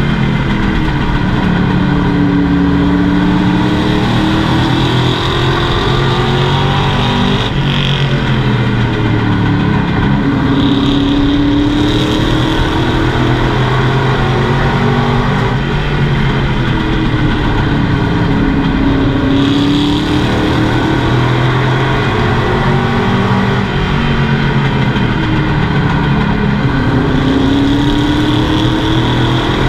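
Race truck's engine heard loud from inside the cockpit at racing speed, its pitch climbing and falling in a long repeating cycle about every eight seconds as the driver accelerates and lifts through each lap, over a steady rush of wind and road noise.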